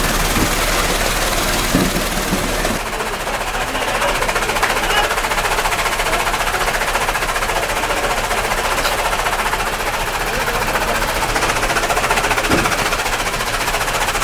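Belt-driven chaff cutter running at speed, its flywheel blades chopping green fodder in a steady, rapid rattling clatter.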